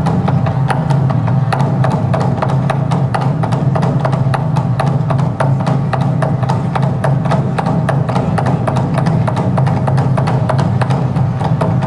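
Traditional Korean drumming on a large barrel drum, struck with wooden sticks in a fast, steady rhythm of sharp strokes over a deep, continuous boom.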